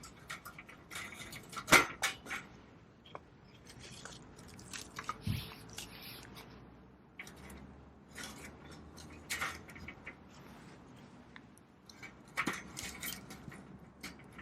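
A knife blade shaving wood in short scraping strokes every few seconds, each with sharp clicks and crackles, as when carving a feather stick.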